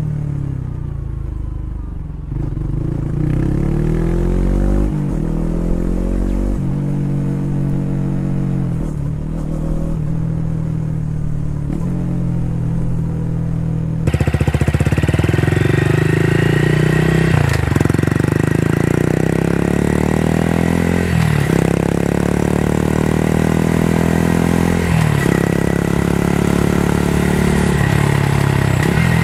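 Honda CB125R single-cylinder motorcycle exhaust through a BEAMS R-EVO muffler with the baffle fitted, its pitch rising and falling as the engine is revved. About 14 seconds in, a Honda Grom with a Yoshimura R-77S muffler takes over. It is louder and brighter, and is revved in a series of short throttle blips that fall back each time.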